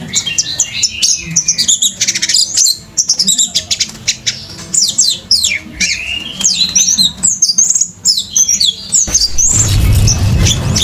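Orange-headed thrush singing a fast, continuous, varied song of quick rising and falling whistles, the bird in full excited song. About nine seconds in, a loud, noisy sound with a heavy low end takes over.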